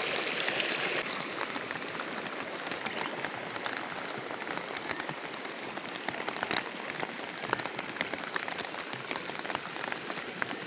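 Heavy rain falling steadily, with many individual drops ticking close to the microphone. A louder hiss in the first second drops away suddenly.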